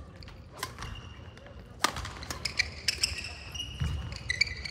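Badminton rally on an indoor court: sharp cracks of rackets striking the shuttlecock, the loudest about two seconds in, with shoes squeaking on the hall floor from then on.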